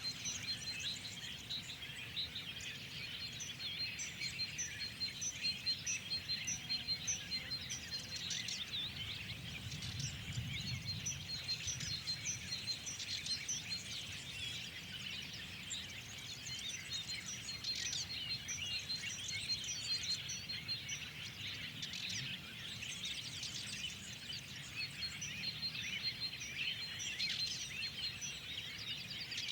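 A dense chorus of many songbirds chirping and trilling together, with one high note repeated at a steady quick pace, over a low steady rumble.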